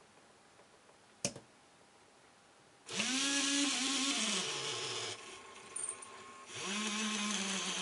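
Toy robot arm's DC gearmotor whining in two runs, about three seconds in and again near the end, as it drives the arm to new set points under closed-loop proportional control. Each run rises to a steady pitch, then drops as the controller slows the motor to a stop at the target. A single sharp click comes about a second in.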